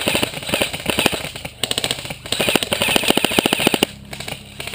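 Airsoft gun firing full-auto in several rapid bursts, with the shots coming fast and even. The firing stops near the end.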